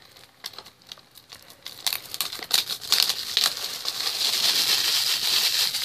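Plastic shrink-wrap being torn and peeled off a DVD case by hand. A few scattered crackles come first, then steady crinkling from about two seconds in.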